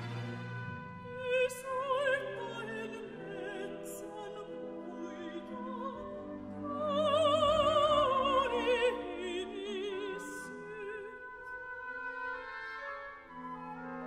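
Mezzo-soprano singing in Finnish with vibrato over sustained orchestral strings. The voice swells to its loudest about seven to nine seconds in, then falls back.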